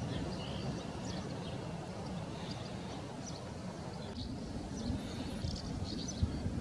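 Short high chirps of common house martins, scattered and coming more often near the end, over a steady low rumble of background noise.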